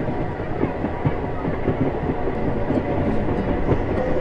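Passenger train running along the track, a steady rumble with the clickety-clack of wheels over rail joints, heard from on board.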